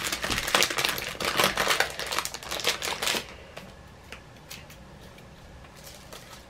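Packaging being handled during an unboxing: a rapid run of crinkling and clicking that stops about three seconds in, followed by a few faint scattered clicks.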